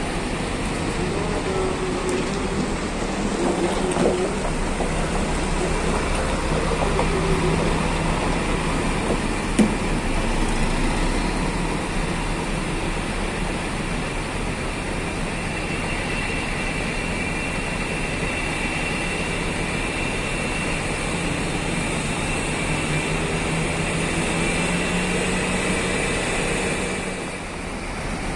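Diesel engine of a Mercedes-Benz coach running steadily as the bus manoeuvres and drives away, with a sharp tap about nine and a half seconds in.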